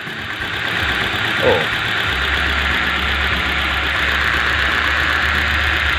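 A 2011 Hyundai i20 petrol engine idling with a misfire while one ignition coil pack is unplugged to find the faulty cylinder. The low rumble of the idle picks up and holds steady about two seconds in.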